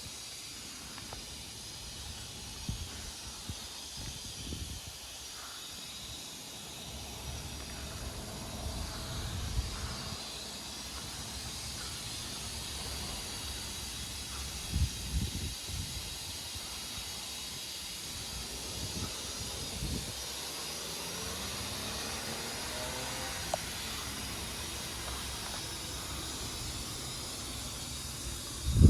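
Steady hissing noise from the mechanism of a broken karakuri automaton clock. It is an abnormal noise that sounds constantly, even outside the clock's show times, while the automata and carillon stay silent: a sign of a fault in the mechanism.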